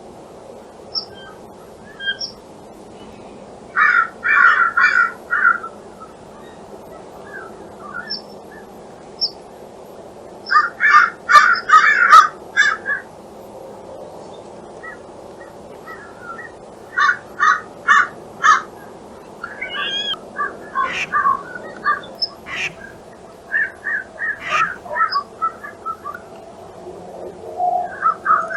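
Crows cawing in several runs of short, harsh calls, four to six calls in quick succession each time, with a looser string of calls near the end.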